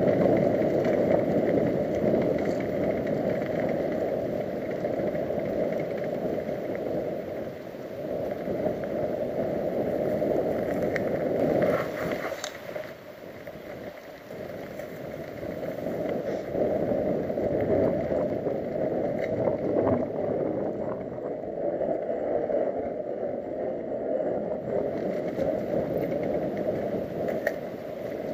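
Muffled, steady rumble of wind buffeting and tyre noise picked up by a camera riding a mountain bike down a dirt forest trail, with a few faint clicks and rattles. It drops away briefly about halfway through, then comes back.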